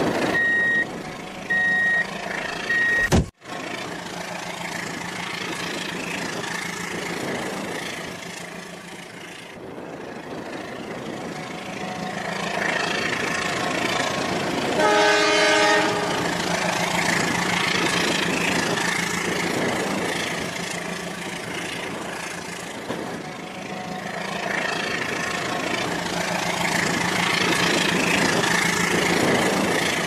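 Battery-powered toy diesel locomotive running along plastic track with a steady motor hum and wheel noise. About halfway through, its electronic horn sound effect blows once for about a second, and a few short electronic beeps sound near the start.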